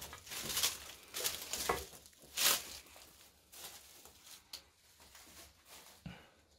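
Footsteps scuffing and crunching over dry straw and debris on a floor, a run of sharp rustles with the loudest about two and a half seconds in, then fainter small rustles.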